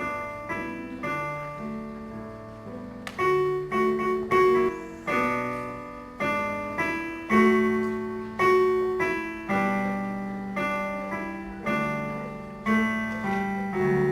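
Piano-style keyboard music: a simple melody of struck notes that fade away, played over lower held notes.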